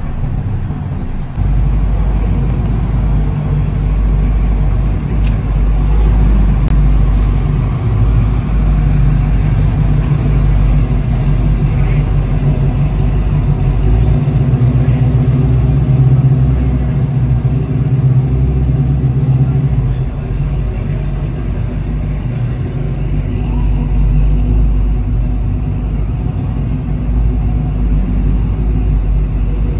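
Classic American muscle car's V8 engine running at low speed as it rolls past, a deep, steady exhaust rumble echoing in a concrete parking garage. It grows louder as the car passes, about halfway through.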